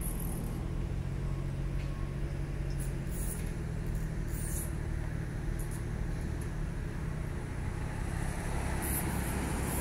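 Steady low drone of a running engine, holding an even pitch throughout.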